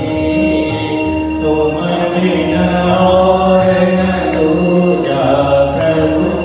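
Congregation singing a Hindu aarti hymn in long held notes, with temple bells ringing steadily.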